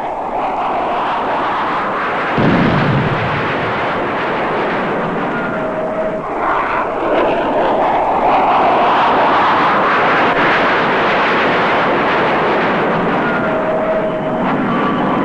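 Jet noise of an F-4 Phantom II flying past overhead. It rises suddenly about two seconds in and is loudest in the middle.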